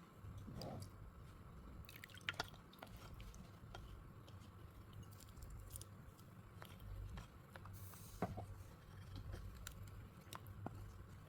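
Faint close-up eating sounds: wet chewing and mouth clicks from someone eating sour green mango with spicy sauce, with a few sharper smacks scattered through.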